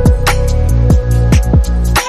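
Background music with a steady beat: held synth chords, sharp hits at regular intervals and deep thumps that drop in pitch.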